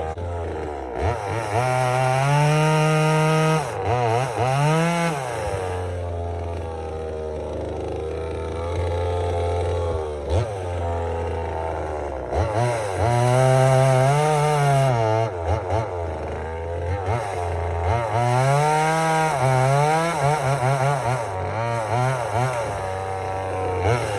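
Vevor 25.4cc two-stroke top-handle chainsaw, brand new and being broken in, revving up and dropping back toward idle several times, with a few quick throttle blips between the longer revs.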